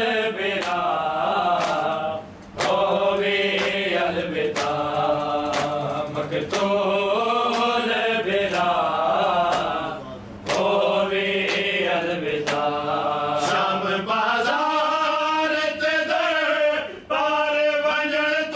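Men's voices chanting a Shia noha (mourning lament) in long phrases with short breaks, over a steady beat of matam strikes, about two a second.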